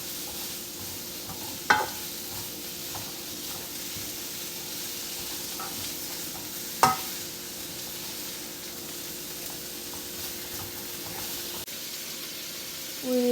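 Vegetables sizzling as they are stir-fried in oil, a steady hiss under a utensil stirring and tapping in the pan, with two sharp clacks against the pan about two seconds in and again near seven seconds.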